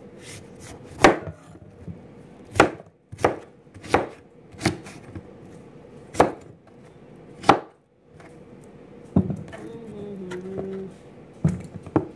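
Large kitchen knife chopping through raw pumpkin onto a cutting board: about ten sharp chops at uneven intervals.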